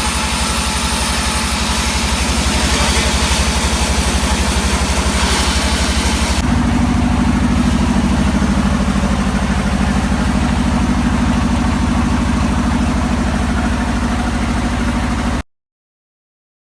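Sawmill engine running steadily, with a higher hiss over it that stops about six seconds in as the engine note shifts. The sound cuts off abruptly near the end.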